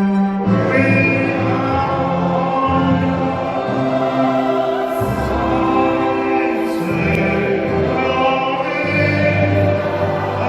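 A choir singing a slow hymn, sustained chords changing every second or two.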